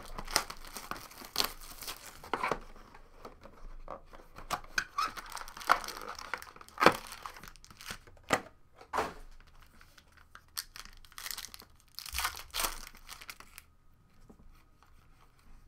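Wrappers of a box of baseball trading card packs being torn and crinkled open by hand, in an irregular string of sharp rips and rustles that dies down over the last couple of seconds.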